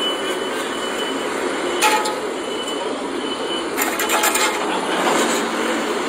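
Vehicle and machinery noise at a construction site: a steady running rumble with short high beeps now and then, like a reversing alarm. A couple of brief clattering knocks come about two and four seconds in.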